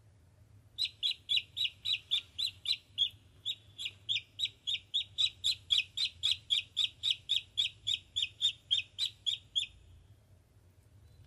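Duckling peeping: a fast, even run of short high peeps, about three a second, starting about a second in and stopping near the end.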